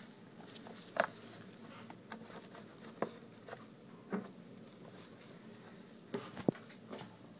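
Scattered soft rustles and taps in shredded paper bedding around a huddle of baby rats, the sharpest about a second in and twice near the end, over a faint steady hum.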